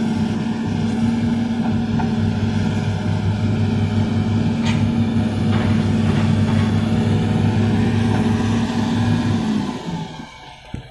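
Heavy diesel engine running steadily at a constant speed, with a deep, even drone; the engine sound stops near the end.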